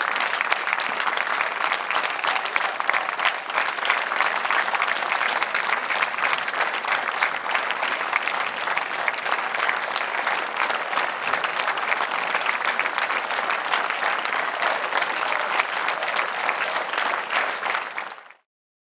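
Audience applauding steadily, a dense patter of many hands clapping; it cuts off suddenly near the end.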